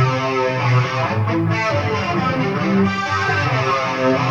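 Music with guitar, playing back from the MP3 just exported from Audacity.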